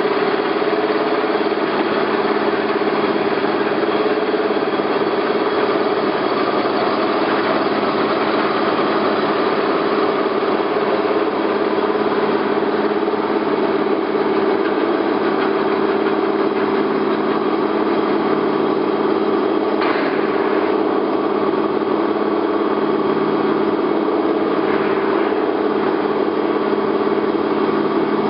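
Select 1880GH gap-bed engine lathe running under power, its spindle drive and gearbox giving a steady hum of constant pitch.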